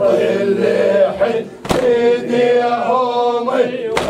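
Male reciter chanting a latmiyya mourning lament in long, held phrases. Two sharp strikes about two seconds apart are the mourners beating their chests in time with it.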